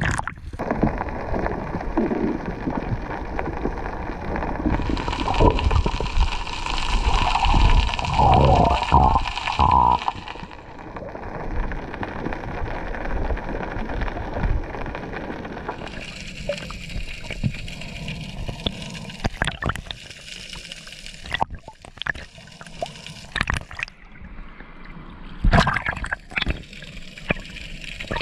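Water sloshing and gurgling around an action camera held at the sea surface. After about ten seconds it quiets, and later it turns to muffled underwater sound with scattered sharp clicks.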